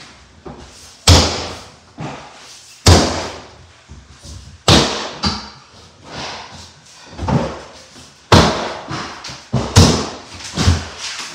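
Heavy blows against an old house wall as it is being busted through: five hard strikes, roughly two seconds apart, with lighter knocks between them.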